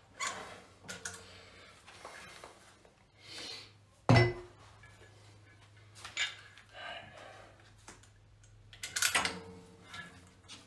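Metal gym equipment on a cable machine clinking and clanking as it is handled, with one sharp, loud clank about four seconds in and a few more knocks near the end.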